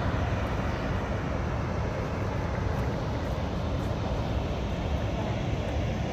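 Steady rushing of a large waterfall's cascade, an even noise heavy in the lows that does not change.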